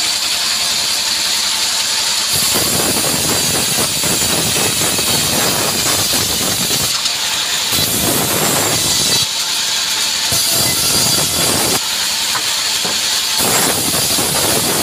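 Sawmill band saw running with a steady high hiss, its blade cutting through mahogany. The heavier cutting noise comes and goes in stretches of one to five seconds as the wood is fed through in several passes.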